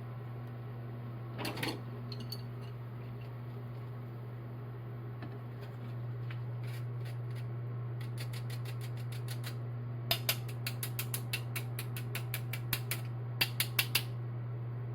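Runs of quick, sharp clicks or taps, several a second, over a steady low hum that steps up a little partway through.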